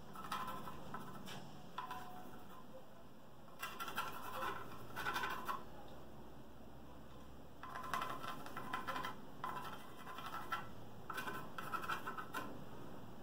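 Pencil scratching across a wooden board, marking out cutting lines, in a series of short bursts about a second long with brief pauses between.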